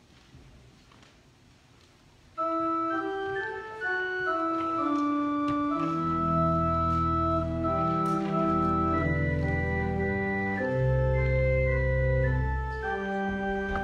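Organ playing a hymn introduction in held, steady chords, starting abruptly a couple of seconds in after a quiet room; a deep bass line joins about six seconds in.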